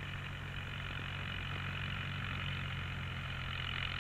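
Ford tractor engine running steadily while pulling a mounted plough, a low even hum with no change in speed.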